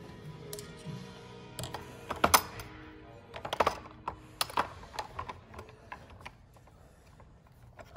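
Hand tools clicking and knocking against a plastic Park Tool Kaddie tool holder as they are handled, in a series of sharp clacks that are loudest about two and three and a half seconds in.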